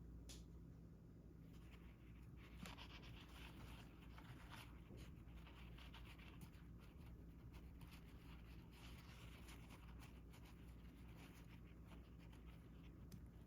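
Faint scratching and scattered small sharp clicks of mechanical keyboard parts being handled and worked on, over a low steady hum.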